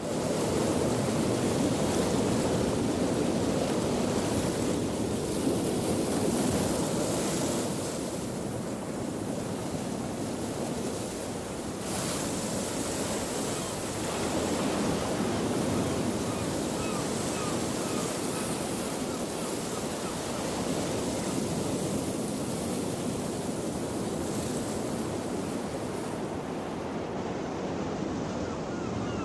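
Ocean surf: waves washing onto a shore in a steady wash of noise that swells and eases slowly.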